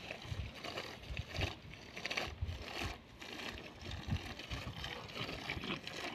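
Dromedary camels drinking from a water trough: irregular slurping and sucking of water.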